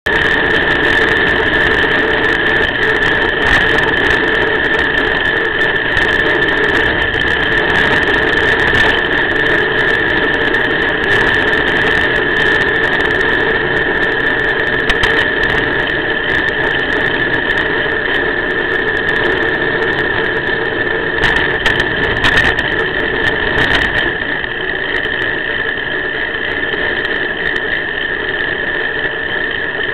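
Steady high-pitched electronic whine with a lower hum, over a continuous rushing noise of movement. The whine's pitch never changes with speed, which marks it as the self-noise of a cheap USB action camera's audio. A few short clicks come about two-thirds of the way through.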